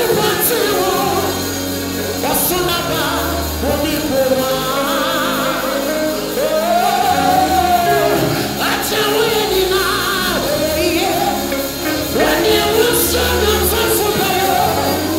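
A male lead vocalist singing a gospel song into a microphone over a live band of keyboard, bass and drums, the melody rising and falling in long held phrases.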